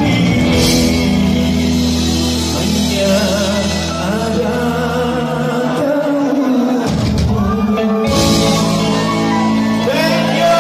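Live rock band playing: a man singing into a microphone over electric bass guitar and drum kit. The bass drops out for a couple of seconds past the middle, then the band comes back in.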